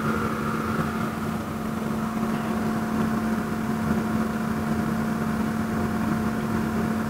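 Steady hum of a small electric fan or motor running: one strong low tone and a fainter higher tone over a light whir.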